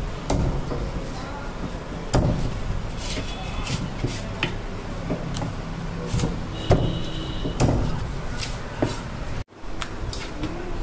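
Heavy cleaver chopping cobia into steaks on a wooden log chopping block: a sharp chop every second or two, each knocking into the wood, over background voices.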